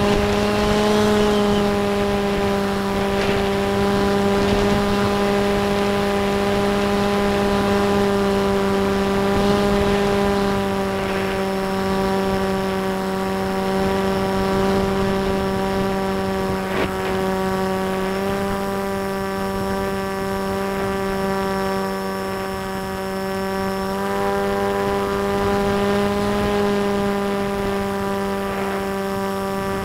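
Model FPV airplane's motor and propeller running at a steady cruise throttle, a continuous hum whose pitch shifts slightly a couple of times, heard from the onboard camera with wind rushing over its microphone.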